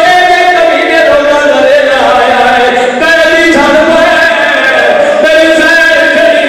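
A man's voice chanting in long, held melodic phrases into a microphone, the sung recitation of a Shia majlis orator (zakir), loud and amplified.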